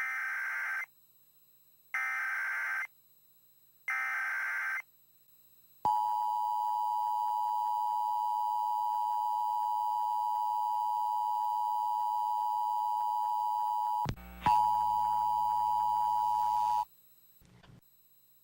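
Emergency Alert System signal: three short bursts of buzzy data tones, the SAME header, about two seconds apart. Then comes the two-tone attention signal, a steady two-pitch drone that breaks with a click about fourteen seconds in, resumes, and cuts off near seventeen seconds.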